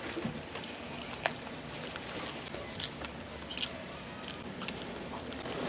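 Close-miked eating: chewing with scattered sharp clicks, over a steady background hiss.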